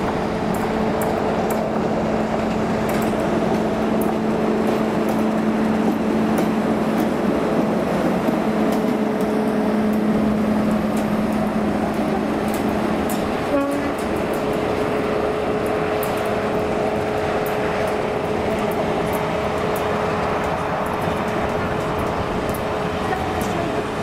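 Pair of English Electric Class 50 diesel locomotives passing under power, their engines running with the steady whine that earns the class its nickname "Hoovers". About halfway through the engine note drops away as the coaches roll by with clicks from the rails.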